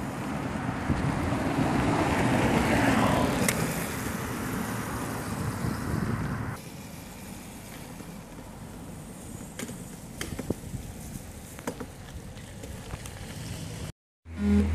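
Small electric kids' dirt bike riding by on dirt: a noisy rush of motor and tyres that swells as it comes close and then eases. About six and a half seconds in, the sound cuts to a much quieter stretch with a few light clicks.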